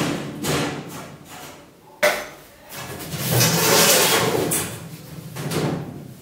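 A steel kitchen wall cabinet being handled and moved into position: a sharp knock about two seconds in, with stretches of scraping and rattling around it.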